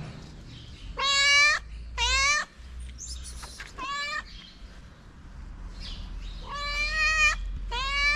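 Calico cat meowing repeatedly, about five meows in a row of a third of a second to a second each, the calls asking for food and attention.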